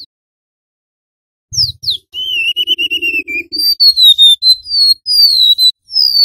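Golden-bellied gerygone (remetuk laut) singing. About a second and a half in come two steep down-slurred whistles, then a short trill that falls slightly, then a run of thin, high, flute-like whistled notes, each sliding down in pitch.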